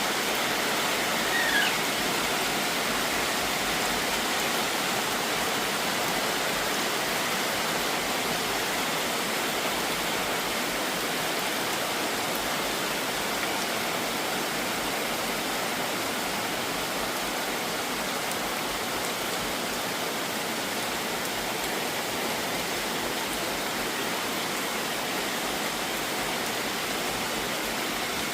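Steady, even rush of water noise, constant throughout, with a brief falling chirp about a second and a half in.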